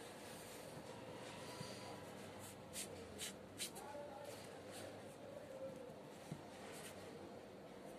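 Faint room noise with a cluster of short scratchy rustles about three to four seconds in, and a single sharp click about six seconds in.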